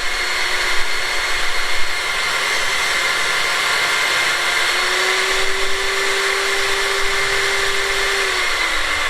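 Electric saw running steadily while ripping a board along its length. Near the end its pitch falls as the motor slows down.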